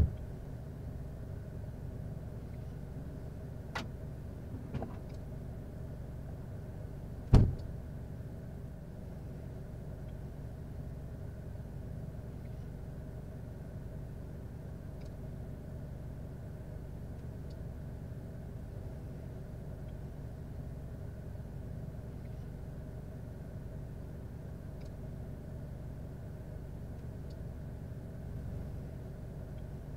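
A steady low hum runs throughout. One loud slam comes about seven seconds in, a car's trunk lid shut after a bag is taken out. A couple of small clicks come a few seconds before it.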